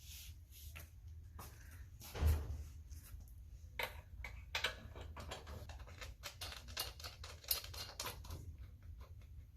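Irregular small clicks and taps of seat bolts, spring washers and flat washers being handled and fitted to the frame, with one heavier thump about two seconds in.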